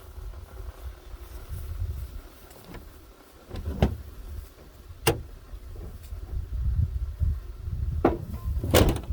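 Sharp knocks and clanks of hand work on a car wheel, four of them spread through the second half and loudest near the end, over a low uneven rumble.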